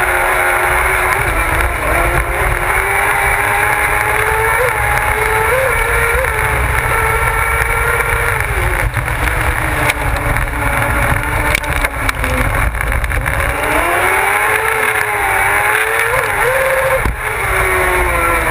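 Onboard sound of a kart cross buggy's engine racing, its note climbing and falling repeatedly as it accelerates and lifts through the corners, with a strong climb near the end, over a low rumble.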